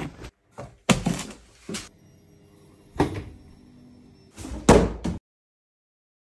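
A string of thuds and knocks from a person stumbling and falling to the floor, with a phone dropping onto it. A sharp knock about three seconds in rings on briefly, and a last heavy thud comes near the end before the sound cuts off dead.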